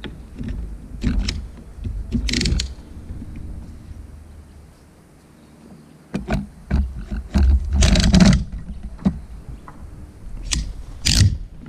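Knocks, clicks and scrapes of a LockRack kayak-carrier arm being handled on a car roof rack, swung over and pressed down onto the kayak's hull to clamp it. They come in several clusters, with a quieter stretch in the middle.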